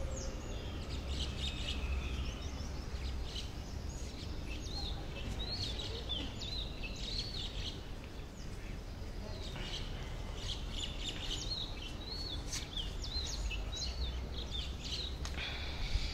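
Small birds chirping and twittering, many short high quick notes scattered through, over a steady low rumble of outdoor background noise.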